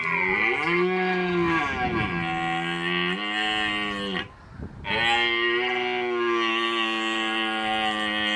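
Red deer stag roaring in the rut: two long roars with a short pause for breath about four seconds in.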